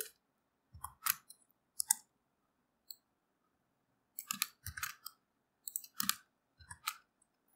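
Clicks and taps from a computer mouse and keyboard, some with a dull knock, in small clusters every second or two.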